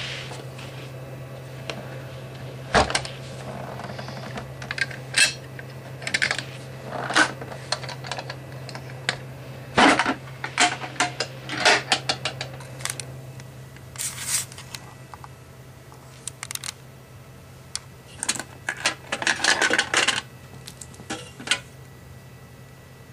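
Irregular clicks, taps and light clatters of small hard objects being handled, coming in scattered bunches, over a steady low hum.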